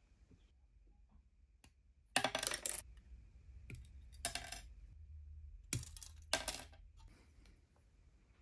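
Plastic model-kit parts being snipped from the sprue with side cutters and handled: sharp clicks and small rattles in four short bursts.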